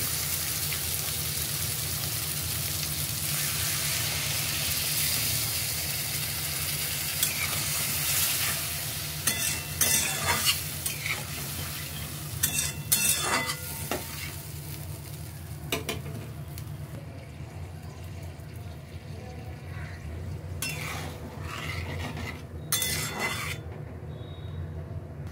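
Potato pieces frying in spiced masala paste in a non-stick wok, sizzling loudly while a spatula stirs and scrapes the pan. About a third of the way in, water goes in. The sizzle then dies down to a quiet simmer, with a few more spatula scrapes near the end.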